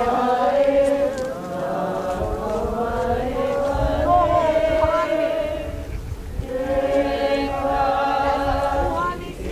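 Voices chanting a Hawaiian oli in long, held notes. The chant pauses briefly about six seconds in, resumes, and breaks off near the end. Wind rumbles on the microphone underneath.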